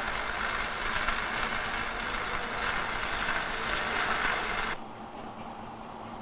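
Electric arc welding crackling steadily. About three-quarters of the way through it gives way to a quieter, duller hiss from a gas welding torch.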